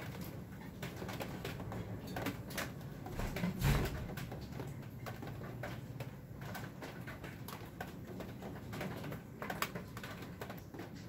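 An elderly Scottish Fold cat snoring softly in its sleep, with one louder low thump about three and a half seconds in.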